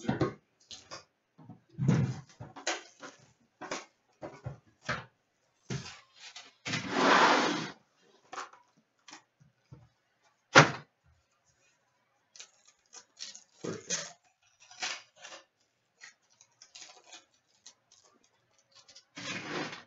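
Cardboard trading-card boxes and foil packs being handled on a glass counter: scattered taps, scrapes and knocks, with a longer sliding scrape about seven seconds in and one sharp knock about halfway. Near the end there is a rustle as a pack is opened.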